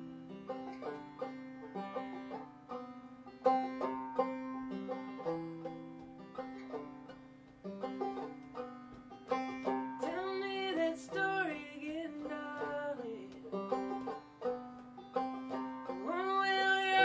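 Live acoustic folk music: banjo and acoustic guitar picking a song's opening, with a woman's singing voice coming in about ten seconds in.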